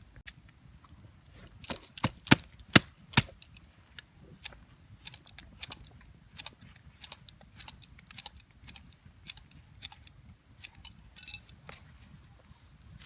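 A run of sharp, light knocks or clicks. The five loudest come close together about two seconds in, then softer ones follow unevenly, about two a second, until near the end.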